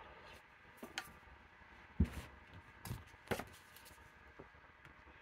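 Comic books being handled: a handful of short taps and paper rustles as one comic is lifted off a clear acrylic display stand and the next is brought in.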